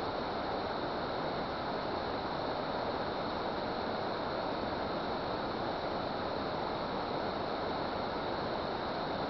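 Steady rushing of water at a dam, an even noise that holds at one level without breaks.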